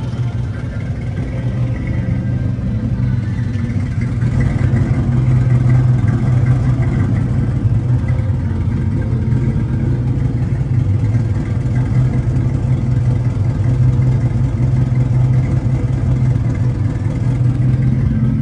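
Car engine running steadily with a strong low hum, a little louder from about four seconds in.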